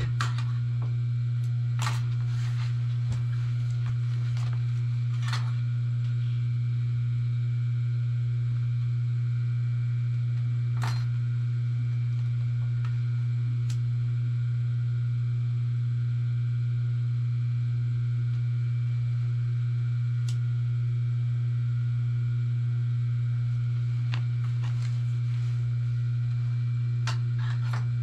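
Steady, loud electric motor hum, with a few short light clicks and taps scattered through.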